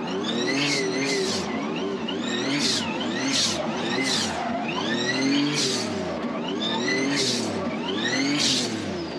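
A drift car's engine revving up and dropping back over and over, about once a second, with short noisy bursts between the revs.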